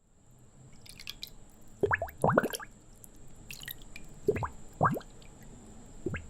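Water bubbles: a handful of short bubbly gurgles, each rising quickly in pitch, coming singly and in pairs every second or two. Under them a faint hiss and a steady high-pitched tone.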